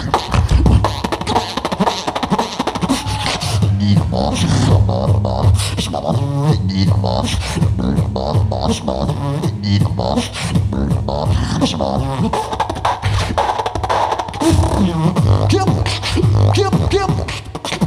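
Beatboxing into a handheld microphone over a PA: deep bass kicks and sharp clicks and snares, with wavering hummed pitched lines over the beat.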